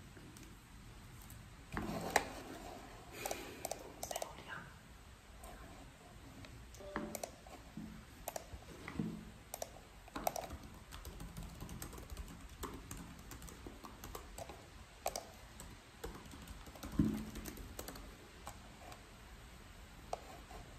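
Laptop keyboard typing and computer mouse clicks: irregular, quiet taps and clicks, with a couple of heavier soft knocks about two seconds in and near the end.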